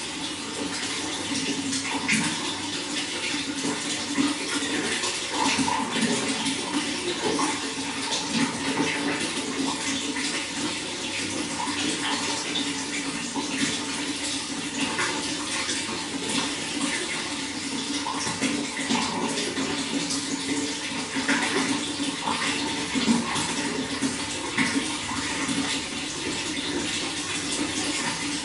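Running water splashing and gurgling steadily, with many small irregular splashes.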